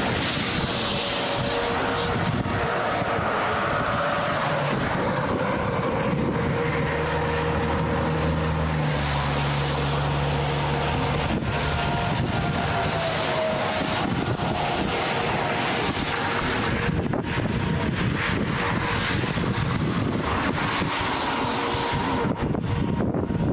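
Storm wind rushing over the microphone, a steady loud noise with faint hums beneath it.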